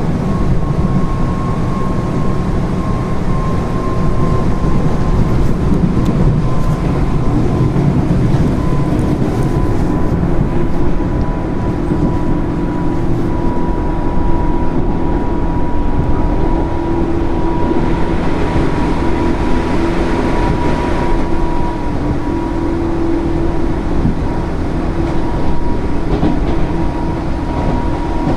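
JR 205 series 0 subseries electric multiple unit running, heard from inside the car: steady rumble of wheels and track with a traction-motor whine that drifts slightly lower in pitch. The train uses field-added excitation control.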